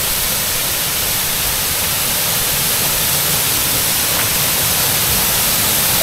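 Steady rushing of a multi-tiered waterfall, water pouring over rock ledges into a pool, growing slightly louder.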